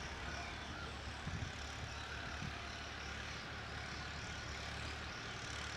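Steady low outdoor rumble with a faint hiss, and a couple of faint brief knocks.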